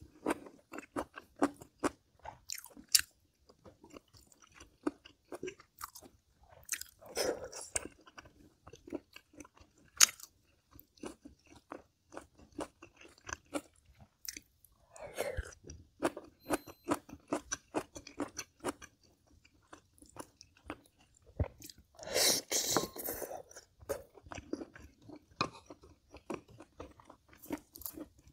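Close-miked mouth sounds of a person chewing and crunching food, irregular, with a few louder crunching spells. The food is braised kimchi with pork ribs, the kimchi left crisp.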